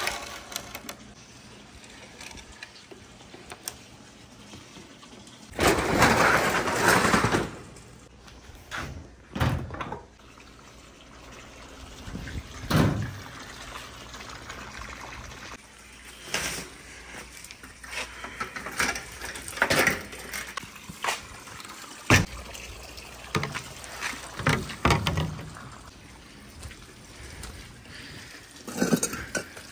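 Marbles and balls running down a wooden marble run as a string of separate rolling rushes and sharp clacks. The loudest is a two-second rush about six seconds in.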